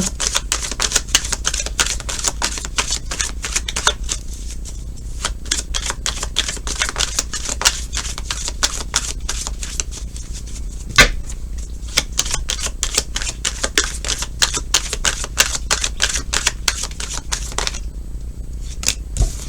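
A tarot deck being shuffled by hand: rapid, dense card clicks and riffles, with one sharper knock about eleven seconds in.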